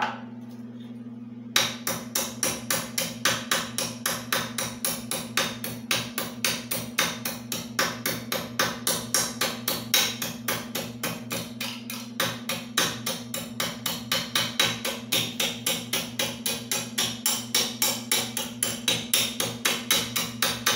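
Metal belt pulley of a piston air compressor being hand-filed: rhythmic rasping strokes, about three a second, starting about a second and a half in, over a steady low hum. The filing takes metal off the side where the pulley wobbles, to true a pulley that has worn oval.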